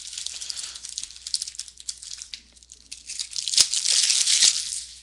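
Foil trading-card pack wrapper crinkling and tearing as it is opened by hand, with a louder burst of crumpling about three and a half seconds in.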